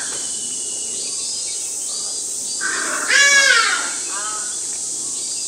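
Hadada ibis giving one loud call about a second long, about three seconds in, over a steady high-pitched insect drone.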